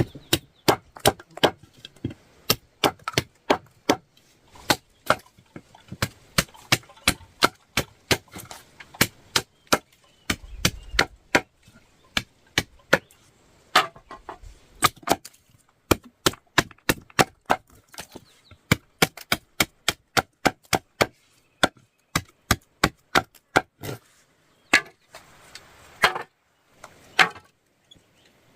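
Rapid series of sharp tool strikes on wood, about two to three a second, with a few short pauses.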